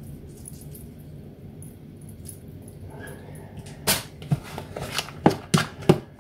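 A spoon knocking and scraping against the sides of a plastic tub as it mixes and presses a mashed chickpea mixture: sharp clacks about three a second that begin about four seconds in, over a steady low hum.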